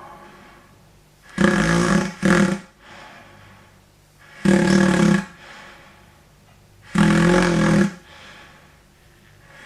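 Balloon-and-pipe airway model buzzing like snoring: four loud, low rattling snores, the first two close together, then two more a few seconds apart, with quieter breathy airflow between. The vibrating balloon stands for the slack soft palate and base of the tongue fluttering in a narrowed airway.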